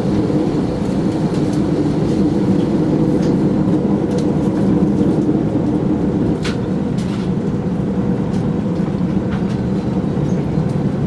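Airliner engines and cabin rumble heard from inside the cabin while taxiing: a steady low drone with a few light clicks or rattles.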